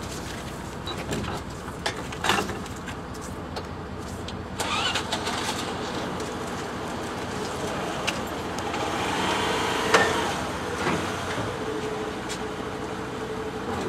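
Engines running on a small river car ferry as it comes in to its landing ramp, with a few sharp knocks. A steady engine tone comes through in the second half.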